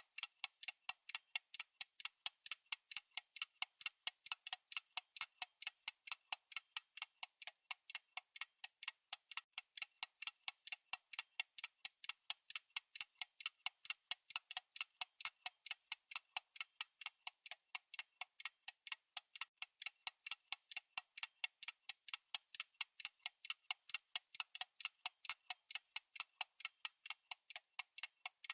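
Steady clock-style ticking of a timer's tick sound effect: sharp, even ticks several times a second, thin and bright with no low end.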